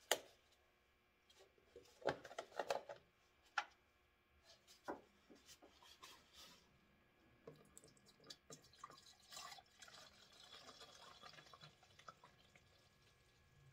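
Sharp clicks and knocks of a plastic jug and cap being handled. About nine seconds in, coolant pours into the reservoir in a soft, splashy stream for a few seconds.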